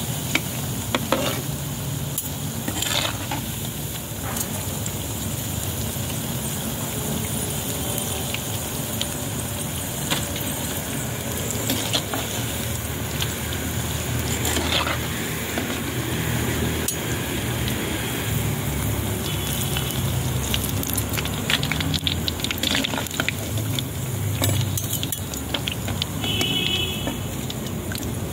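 Cabbage pakoras sizzling steadily as they deep-fry in hot oil in a clay pot, with a metal spoon scraping and knocking against the pot now and then as they are turned and lifted out.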